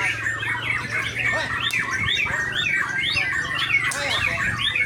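A songbird singing a fast, continuous run of short chirps and whistled notes, with a faint steady low hum underneath.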